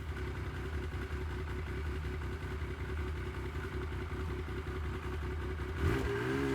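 Yamaha Viking snowmobile engine running steadily at low revs with a rapid, even pulse. Near the end it revs up, the pitch rising and wavering.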